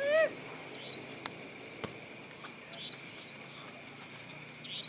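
Crickets chirring steadily at night, with short rising chirps about every two seconds. A brief high shout comes right at the start, and a couple of sharp knocks fall about a second and two seconds in.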